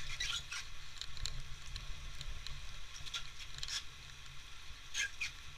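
Rain pattering, with scattered taps on and around the camera, over a steady low rumble.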